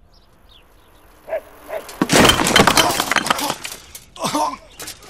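A bicycle hitting a low wooden ramp and crashing: a loud clatter of many sharp impacts about two seconds in, lasting about a second and a half. A few short vocal sounds follow near the end.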